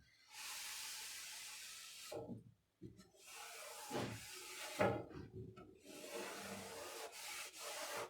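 Hand tool rubbing or scraping on the sword's parts: one stroke of about two seconds, then after a short break a longer stretch of rubbing with a few knocks.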